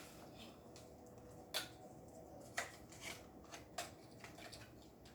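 Sharp plastic clicks and clacks from a Nerf blaster being handled and worked, four of them spread over a couple of seconds, the first two the loudest.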